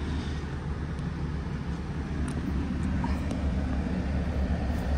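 Low, steady rumble of a Ram 1500 pickup's engine idling.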